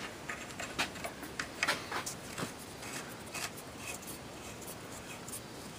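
Light, irregular metallic clicks and rubbing as a steel muzzle brake is handled and offered up by hand to the threaded muzzle of an AR-15 pistol barrel.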